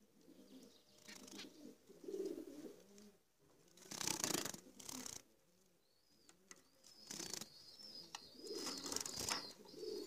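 Caged zebra finches calling faintly: about half a dozen short calls spread out, with a faint wavering high chirping over the last few seconds.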